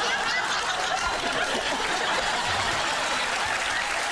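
Studio audience laughing and applauding.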